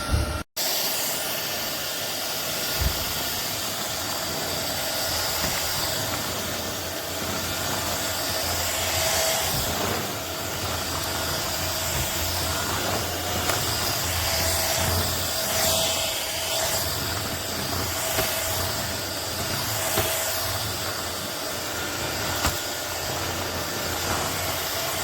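Vistefly V15s Max cordless stick vacuum running steadily: a hissing rush of air with a faint whine held on one pitch, cutting out for an instant just after the start.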